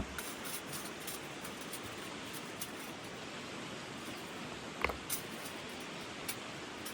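Stream water flowing steadily, with a sharp click about five seconds in.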